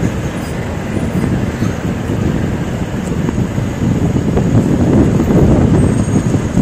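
Road traffic on a busy city street: a steady rumble of cars and buses going by, growing louder in the last couple of seconds.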